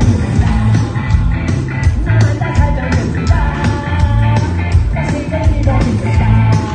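Loud rock music with a steady drum beat and a singing voice.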